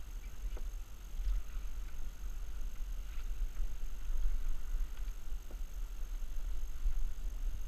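Wind rumbling on the microphone over water slopping against a plastic kayak hull on choppy sea, with a few faint taps.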